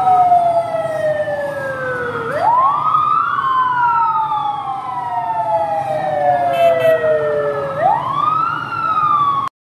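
Convoy vehicle siren wailing over traffic rumble. Its tone falls slowly for several seconds, then swoops quickly back up, about two seconds in and again near eight seconds. The sound cuts off abruptly just before the end.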